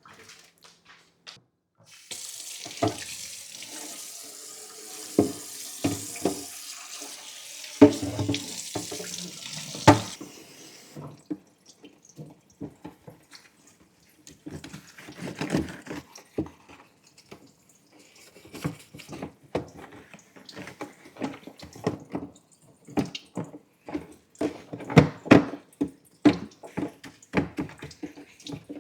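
Tap running into a sink for about nine seconds, with knocks and clatter of things being handled under the water. After the water stops, a string of irregular knocks and clinks of items being handled continues.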